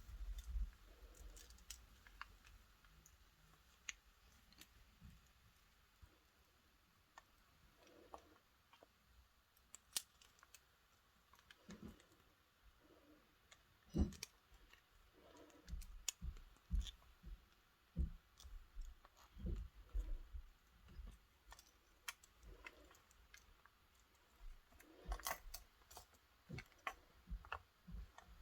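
Small metal keyring parts and pliers being handled: scattered faint clicks and taps at irregular intervals, with a sharper click about fourteen seconds in.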